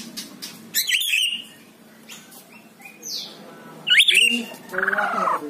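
White-rumped shama singing: sharp rising whistled notes with clicks, about a second in and again near four seconds in, a falling whistle between them, and a lower chattering phrase at the end.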